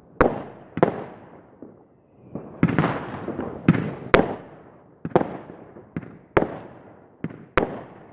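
Fireworks bursting in the air: a string of sharp bangs about once a second, each trailing off in an echoing rumble, with a quicker, denser cluster of bursts a few seconds in.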